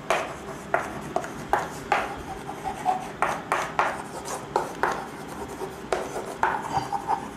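Chalk writing on a chalkboard: a quick, irregular run of scratching strokes and small taps as letters are written.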